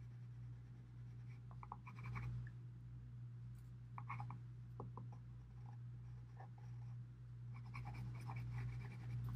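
Pencil scratching on paper in short, irregular strokes as a dark pencil shades in a dense area of tone, over a steady low hum.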